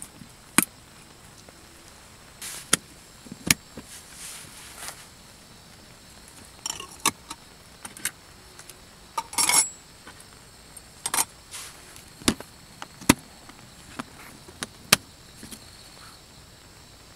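Small camping items being handled and packed into a plastic storage box: about a dozen scattered sharp clicks and clacks of lids, bottles and utensils being set down, with a few brief rustles, the longest just past halfway.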